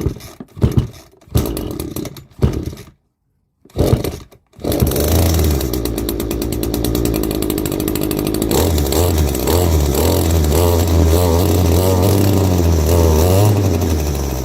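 Echo GT-225 string trimmer's small two-stroke engine being pull-started on choke: a few short pulls on the starter cord, then it catches about four and a half seconds in and runs, going up to a higher speed about eight and a half seconds in.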